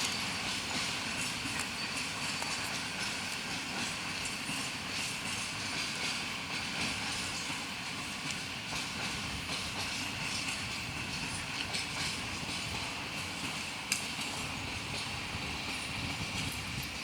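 Freight train wheels running on the rails, a steady rumble with frequent clicks and a sharp knock about 14 seconds in.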